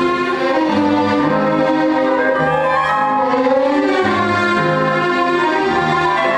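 Orchestral film score: strings playing sustained notes, the low line moving to a new note about every second.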